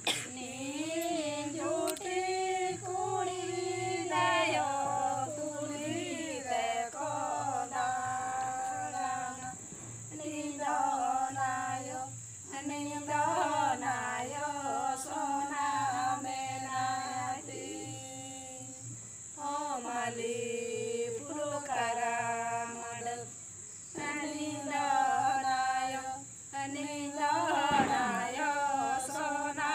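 Santali Sohrai song (Sohrai sereng) sung unaccompanied by a small group of women's voices, in phrases of long held, gliding notes with short breaks between them.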